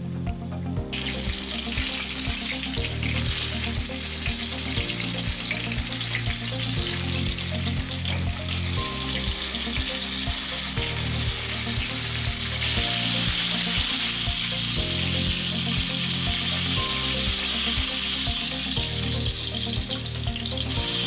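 Breaded chicken cutlets frying in a pan of hot oil, a steady sizzle that gets louder about two-thirds of the way through, over background music.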